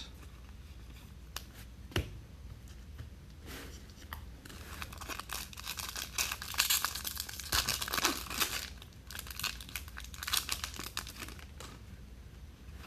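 Foil trading-card pack wrapper being torn open and crinkled, with a few sharp clicks early on and a busy stretch of crinkling in the middle.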